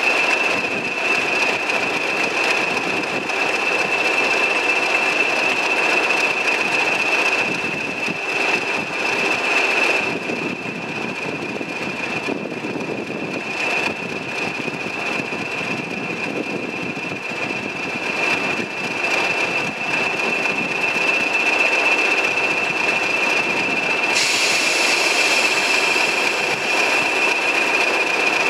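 A pair of Class 20 diesel locomotives under full power pulling away: heavy engine thrash with a loud, steady high-pitched turbocharger whistle held throughout. Near the end the hiss above the whistle grows brighter.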